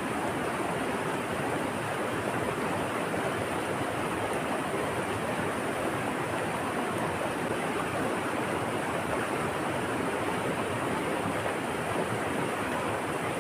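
Steady rushing water, an even hiss with no surges or breaks, with a faint steady high-pitched whine above it.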